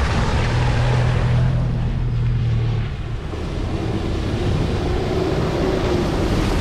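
Tipper truck driving on the road: engine drone and road rumble, with wind buffeting the microphone. The engine note shifts about three seconds in.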